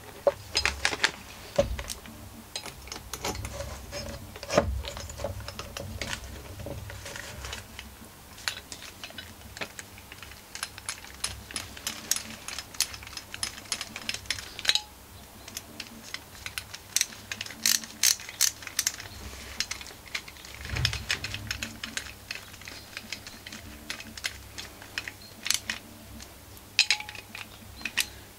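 Small metal clicks, ticks and clinks of hand tools and engine parts being handled, with several runs of quick clicking, as screws are fitted back into a Stihl FS51's small two-stroke engine.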